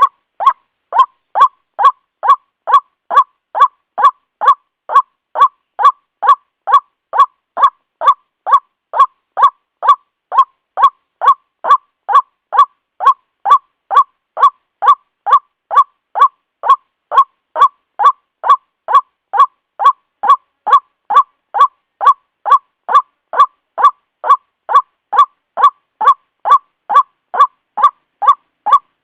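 White-breasted waterhen (ruak-ruak) calling: a steady, evenly spaced run of short, loud, harsh notes, about two and a half a second, without a break.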